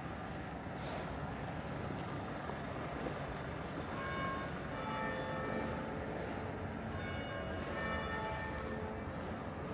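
Church bells begin ringing about four seconds in, several bells sounding together and striking repeatedly over a steady background of street noise.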